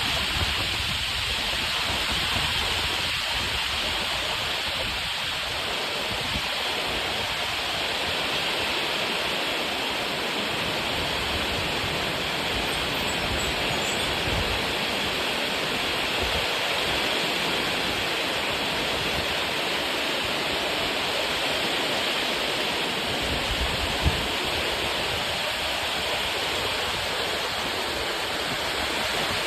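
Heavy rain pouring down in a windy storm: a steady, dense hiss, with low rumbles of wind gusting on the microphone now and then and a single short knock a little past two-thirds of the way in.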